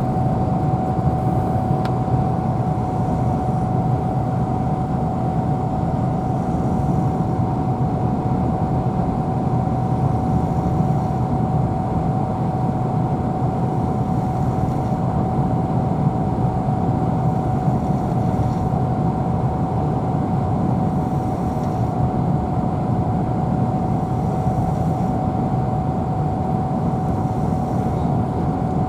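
Steady road and engine noise inside a moving car, with a thin steady whine over it.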